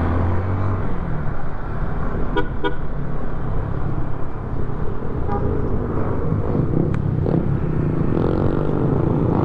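Motorcycle engine running with road and wind noise while riding, and a vehicle horn tooting twice in quick succession about two and a half seconds in.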